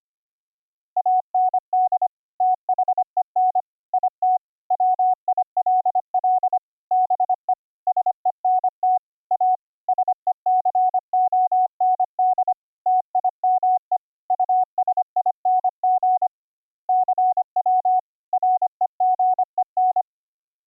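Computer-generated Morse code (CW) from a software CW keyboard: a single pure beep tone keyed on and off in dots and dashes, sent as a fast, steady stream of characters with short gaps between them. It begins about a second in and stops just before the end.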